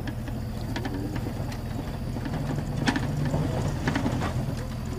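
Land Rover engine running steadily as it drives over rough grassland, with a few sharp clicks and rattles scattered through.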